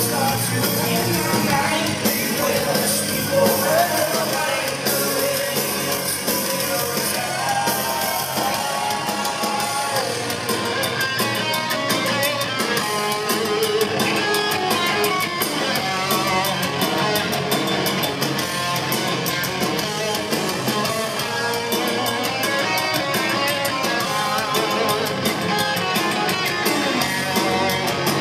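Live heavy metal band playing: distorted electric guitars over a drum kit, heard from the audience in a theatre. From about ten seconds in the band settles into a fast, even rhythm.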